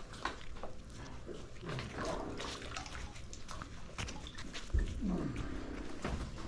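Magnet-fishing rope being hauled up hand over hand, with scattered scrapes and clicks and a low knock about five seconds in. Two short whining vocal sounds come through, the second sliding down in pitch.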